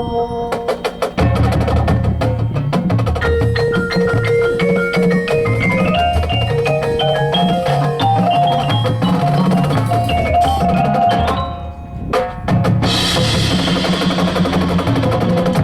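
High school marching drumline and front ensemble playing: sharp clicks, then bass drums and tenors driving under a marimba and glockenspiel line that climbs in steps. Just before twelve seconds in the sound drops briefly, then cymbals come in loud with the drums.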